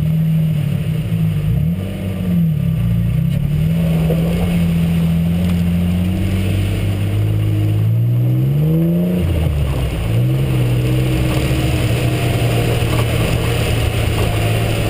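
A 4x4's engine running, heard through its own hood: its pitch dips briefly twice in the first few seconds, climbs steadily about seven seconds in, then drops sharply about two seconds later and settles.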